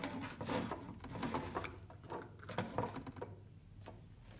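Irregular small clicks and rattles from a cooling-system pressure tester's bayonet coupling being twisted tight onto the adapter cone in a plastic coolant expansion tank, with handling of the hose and hand pump.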